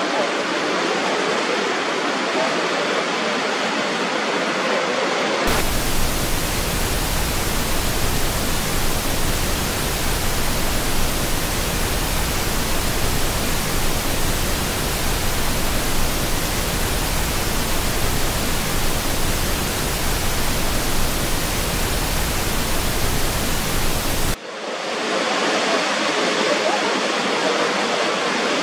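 Roar of the Horseshoe Falls, water pouring over the brink as a steady rushing noise. About five seconds in it switches abruptly to a fuller, even hiss that reaches from deep to high pitches. It switches back to the thinner rushing a few seconds before the end.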